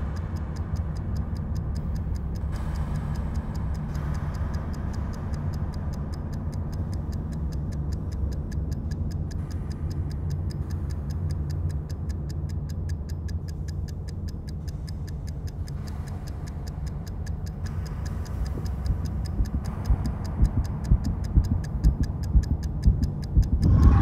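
Mechanical oven timer ticking steadily over a low, steady hum. The hum swells and pulses louder in the last few seconds.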